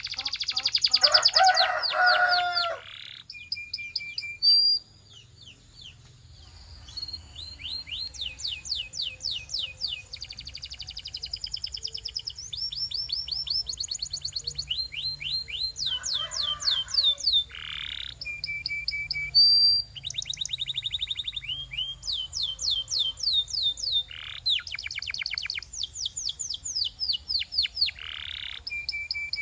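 Domestic canary singing a long, continuous song made of rapid trills: runs of fast-repeated sweeping notes that switch to a new pattern every second or two, with a few short held whistles in between. The song is loudest in the first few seconds.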